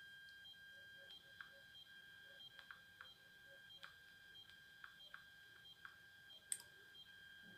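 Near silence: a faint steady high whine with a few light, scattered clicks of a finger tapping a smartphone touchscreen.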